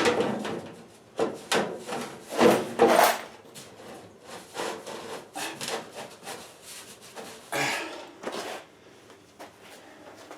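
Irregular rubbing and scraping as sheet-metal heat duct is handled and worked into place, with the loudest scrapes about two and a half seconds in and again near eight seconds.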